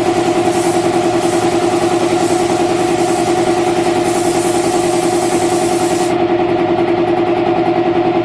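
Piston air compressor running with a steady pulsing hum, with the air hiss of a paint spray gun over it that cuts off about six seconds in.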